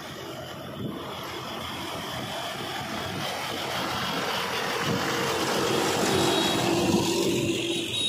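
Mahindra 265 DI tractor's three-cylinder diesel engine running as the tractor and its trailer approach and pass close by, growing steadily louder and then dropping off sharply as it goes past near the end.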